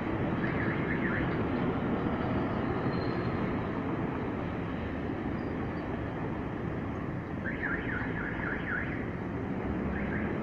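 Steady city traffic at a busy intersection, with the engines of vans, a truck and a bus passing. Over it, a warbling electronic signal of quick rising-and-falling sweeps sounds briefly about half a second in, again for over a second around three-quarters of the way through, and once more near the end.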